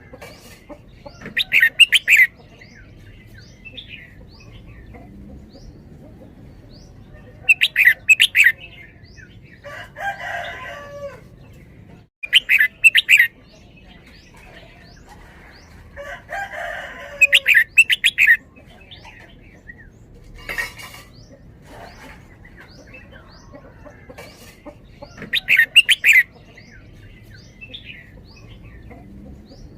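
Red-whiskered bulbul singing: about five loud, short song phrases roughly every five seconds, with softer chirps in between.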